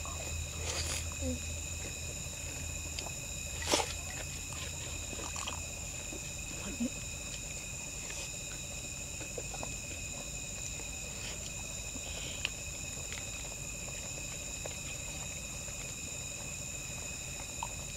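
Night insects trilling steadily in several high, even tones, with a few short clicks and knocks of eating; the sharpest knock comes about four seconds in.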